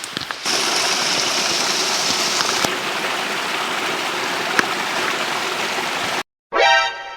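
Steady rush of flowing stream water that cuts off abruptly near the end. After a short gap, a single musical note starts suddenly and rings out.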